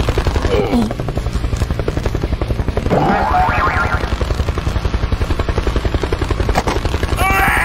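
Helicopter rotor sound effect: a fast, steady chopping beat with a heavy low rumble. About three seconds in, a short cartoon-style tone sweeps upward over it.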